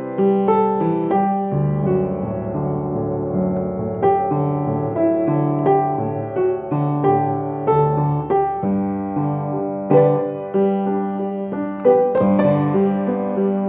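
Solo piano playing a slow, gentle piece: a melody of single notes over held chords and low bass notes.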